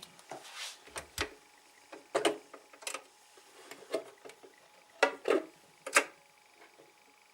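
Irregular sharp clicks and knocks, about eight to ten, from a tool and light fittings being handled while a light is fitted into a computer case.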